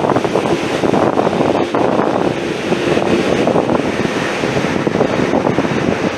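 Strong wind buffeting the microphone, a dense, steady rush with constant flutter.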